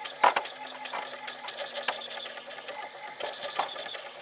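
HP OfficeJet Pro 8020 inkjet printer printing its print-head alignment page, heard as the print carriage shuttling and the paper feeding: a steady mechanical whir with many quick clicks. A sharper clack comes about a quarter second in.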